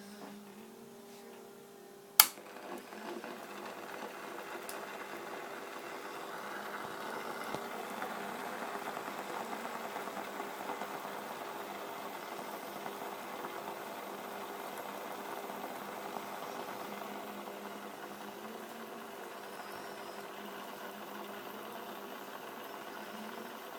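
A sharp click about two seconds in, then water heated by a bare resistance wire (heating element run from a low-voltage transformer) starting to crackle and fizz, building over several seconds into a steady crackling simmer. A steady hum sits underneath.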